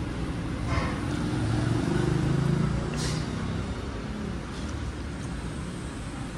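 Background road traffic: a steady low rumble that swells for a couple of seconds near the middle.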